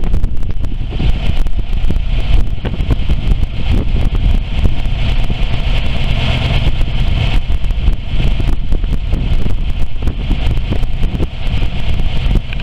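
The 292 cubic-inch V8 gas engine of a 1959 Ford F600 grain truck running at a steady idle, with a loud, rough exhaust from a truck that needs a muffler.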